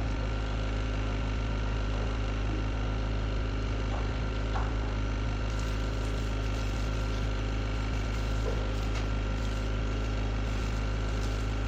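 Excavator's diesel engine idling steadily, with a few faint knocks over it.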